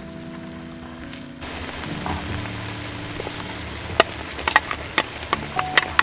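Spicy fish-cake stew simmering with a sizzling hiss in a foil pan. A ladle is being stirred through it, clicking and scraping against the foil several times in the second half. The hiss comes in about a second and a half in.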